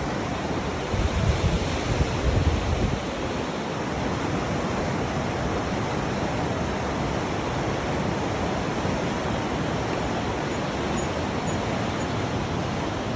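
Steady rush of whitewater rapids in a river below a footbridge. There are low buffets on the microphone between about one and three seconds in.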